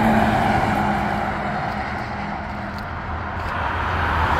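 A pickup truck towing a travel trailer passes on the highway, its tyre and engine noise fading over the first three seconds. Near the end, traffic noise builds again as another vehicle approaches.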